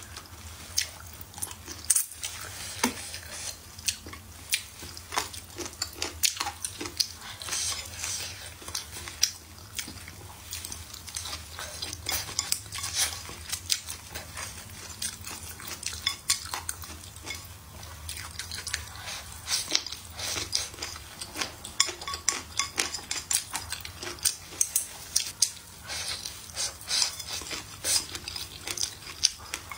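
Close-miked eating: wooden chopsticks click and scrape against a ceramic plate many times at an uneven pace, along with short mouth sounds of food being taken off the plate.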